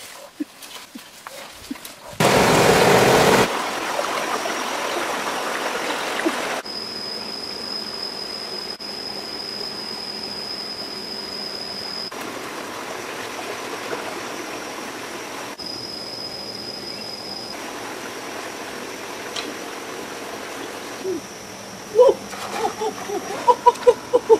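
Shallow rocky stream flowing: a steady rush of water, with a louder burst of the same rushing noise about two seconds in.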